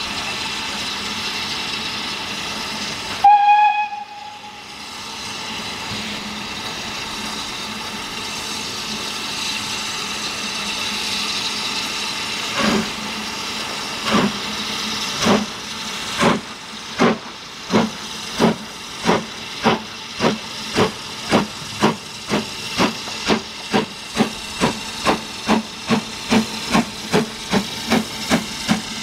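Steam locomotive giving one short whistle blast about three seconds in, over a steady hiss of steam. About twelve seconds in it sets off: its exhaust beats start slow and quicken steadily to about two and a half a second.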